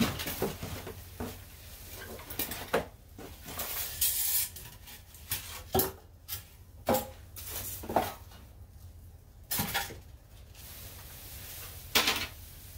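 Plastic bag rustling and crinkling as a sheet-metal shutter exhaust fan is unwrapped and handled, with irregular clinks and clatters of the metal housing and louvres.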